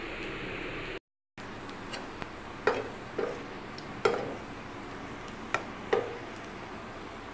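Steel ladle clinking and scraping against a kadai while stirring garlic and dried red chillies frying in oil: about seven sharp metallic knocks over a steady hiss. The sound drops out briefly about a second in.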